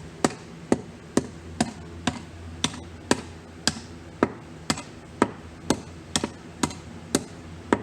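Hand hammer striking hot rebar on an anvil, flattening it into a chisel point: steady blows about two a second, each a sharp metallic clank with a short ring.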